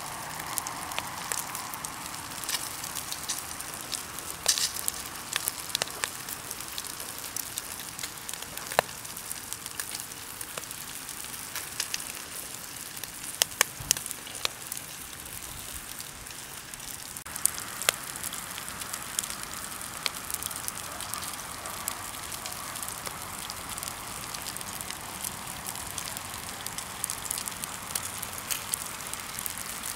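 Wood campfire crackling: irregular sharp pops and snaps over a steady hiss.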